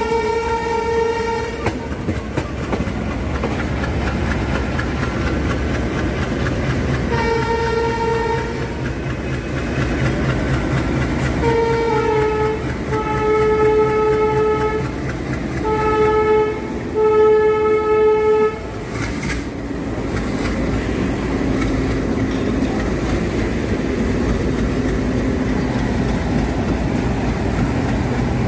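Indian Railways Alco-type diesel locomotive horn sounding about six blasts: one at the start, one about seven seconds in, and a run of four between about twelve and eighteen seconds, the longest lasting over two seconds. Under the horn and after it, the diesel engine runs steadily and the train's wheels rumble and clatter on the rails.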